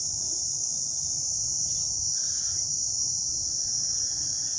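Steady high-pitched chorus of insects.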